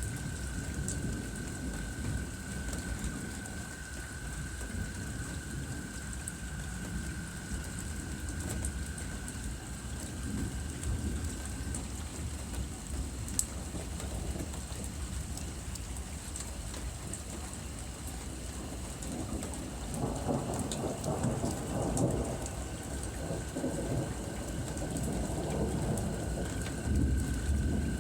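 Rain falling steadily with low thunder rumbling throughout, the rumble growing louder and rougher about two-thirds of the way through. A faint steady high tone sounds under it, stopping partway and returning near the end.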